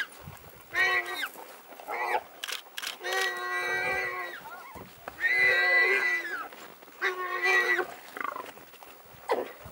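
Warthog squealing in distress, a string of long squeals, some about a second long, while African wild dogs bite and pull at it.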